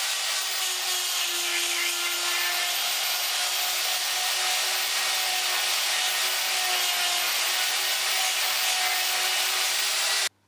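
Bosch electric die grinder running at speed, its pink grinding stone grinding out the hole in a hardened steel hasp: a steady harsh grinding over the motor's whine, cutting off suddenly near the end.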